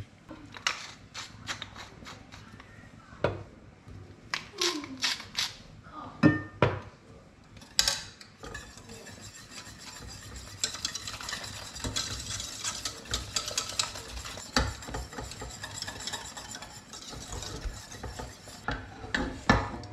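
Wire whisk working a thick velouté sauce in a stainless steel saucepan as it comes up to the boil, the wires rattling and scraping against the pan. A few separate taps and scrapes at first, then about ten seconds of continuous rapid whisking.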